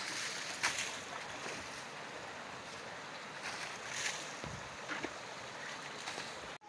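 Water thrown by the jugful against a car's side panels and splashing down onto wet ground: several separate splashes over a steady rush of running water.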